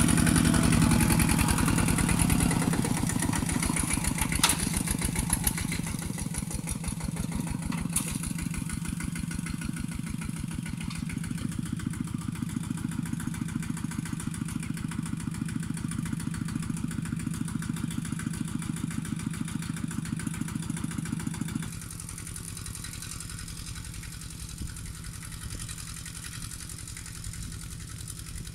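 Two-wheel walking tractor's single-cylinder diesel engine running steadily under load as it pulls a plough through dry soil, with a fast, even beat. About three-quarters of the way through the sound drops suddenly and carries on quieter.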